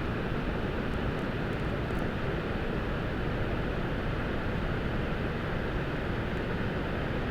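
Waterfall in heavy flow: a steady, even rush of water pouring down and striking the ground, its stream swollen by recent rain.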